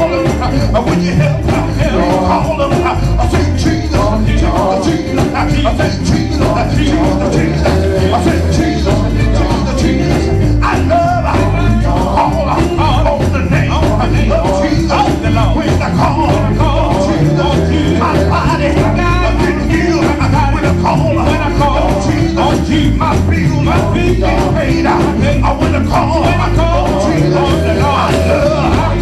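Live gospel music from a praise-and-worship band, played loud and steady with heavy bass and a driving percussion beat, with voices over it.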